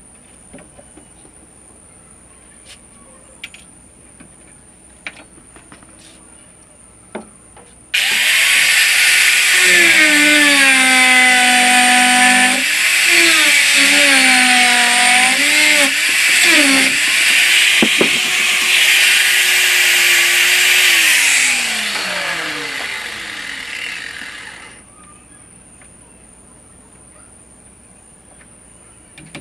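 Handheld electric power tool cutting into wood. Its motor pitch dips and recovers as it bites under load, over a loud hiss. Near the end it is switched off and its pitch falls steadily as it spins down. Before it starts there are faint scattered ticks and knocks.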